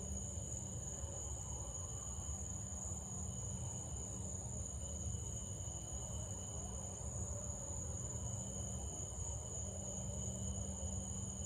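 Crickets trilling steadily in the night air, a continuous high-pitched chorus, over a low steady hum.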